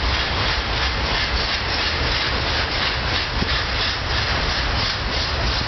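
Double-stack intermodal freight train rolling steadily past: a low rumble and a rushing of steel wheels on rail, with a regular clatter as the cars go by.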